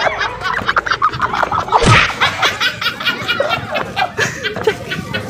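Young women laughing and giggling in quick, rapid pulses, loudest about two seconds in.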